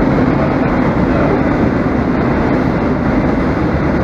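Loud, steady background rumble and hiss with no clear tone or rhythm.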